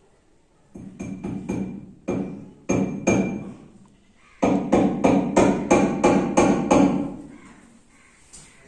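A hammer driving a nail into the wall to hang a canvas panel: a few separate ringing blows, then a quick, even run of about ten blows, about four a second.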